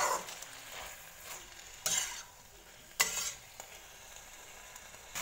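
Spatula stirring oyster mushrooms, chilies and spring onions in a sizzling wok, with a steady frying hiss and sharp scraping strokes against the pan at the start, about two seconds in and about three seconds in.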